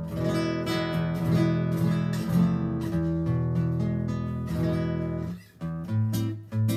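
2003 RainSong carbon-fibre nylon-string guitar played fingerstyle with a thumb pick: plucked notes and chords ringing on, with a short break about five and a half seconds in before the playing picks up again.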